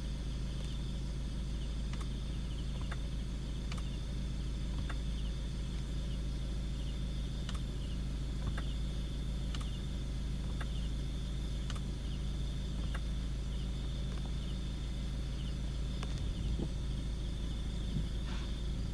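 Car engine running with a steady low hum, with crickets chirping outside in a high, repeating trill and a faint click about once a second.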